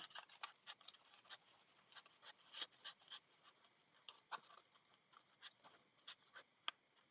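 Faint rustling and small scattered ticks of paper being handled, as signature tabs are worked into a paper accordion hinge.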